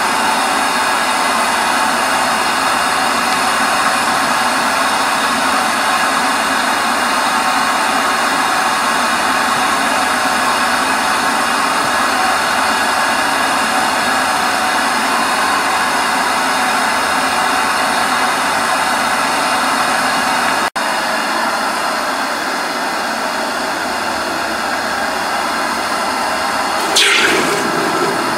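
Steady loud rushing noise of a blower-type machine running without change. About 21 s in the sound briefly cuts out. Near the end there is a short hiss that falls in pitch.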